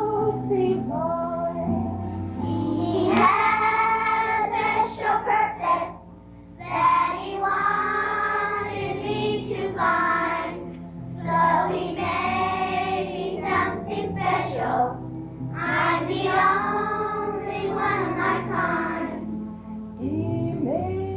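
Singing with music, played back from an old Super 8 film's sound track, in sung phrases of a few seconds each with a short break about six seconds in.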